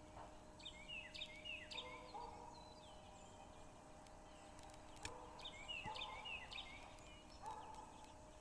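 Faint bird calls: three bouts of quick chirping notes, a few seconds apart, over a low steady hum.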